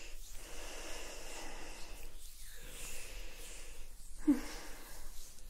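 Hands slick with coconut oil rubbing and sliding close to the microphones, a soft wet swishing with brief pauses, and a short, louder squeak a little after four seconds in.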